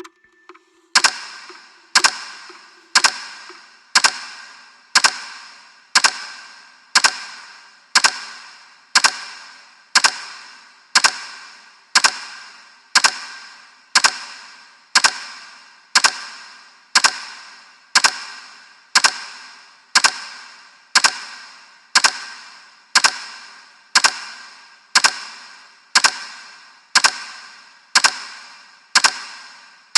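Timer's ticking sound effect: a sharp strike once every second, each ringing briefly and dying away before the next, starting about a second in.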